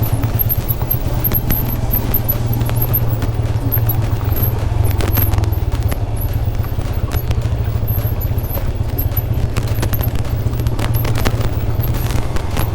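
Motorcycle rolling slowly down a rough dirt trail in low gear: a steady low rumble with rapid rattling clicks over the rough ground.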